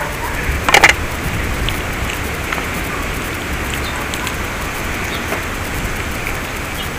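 Kitchen shears snipping through a small fish's belly and fins, a short crunchy cluster of clicks about a second in, followed by faint ticks of handling over a steady outdoor hiss.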